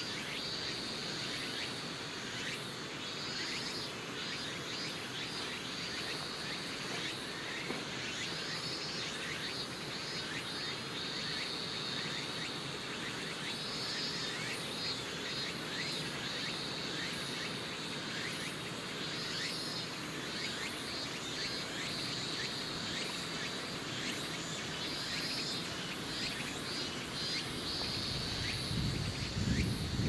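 Insects calling in a continuous chorus: a high steady trilling with repeated pulsing calls and short falling chirps, over a steady background hiss. A low rumble comes in near the end.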